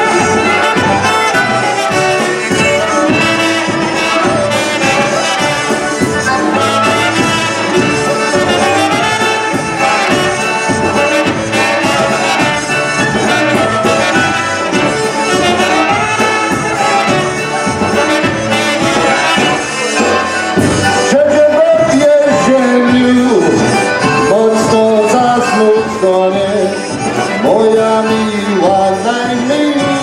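Live polka band playing a polka, with trumpet, clarinet and concertina over drums keeping a steady beat. A man's singing voice comes in about two-thirds of the way through.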